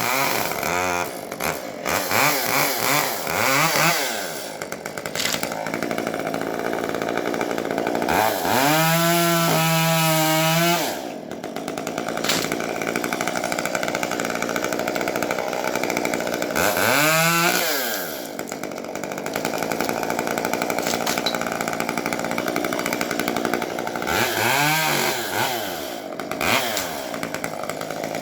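Chainsaw engine revving up and down over and over. There are several quick throttle blips near the start and near the end, a rev held high for about two seconds around nine seconds in that drops off suddenly, and another rise and fall around seventeen seconds, with the saw running at lower speed in between.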